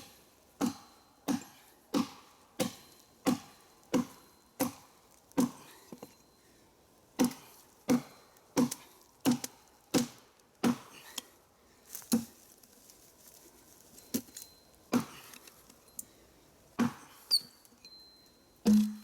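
Axe chopping into a tree trunk by hand: sharp blows at a steady pace of about one every two-thirds of a second for the first ten seconds, then a few slower strokes with pauses between them.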